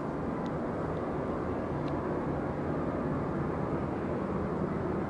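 Steady low rumble of a distant engine, even and unbroken, with two faint ticks in the first two seconds.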